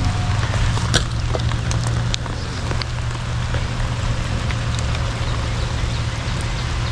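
Steady rain falling, an even hiss, over a steady low hum, with a few sharp clicks, the clearest about a second in.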